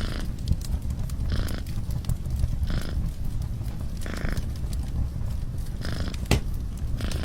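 Domestic cat purring close up: a steady low rumble with a breathy swell about every second and a half. A wood fire crackles over it with scattered pops, one sharper pop near the end.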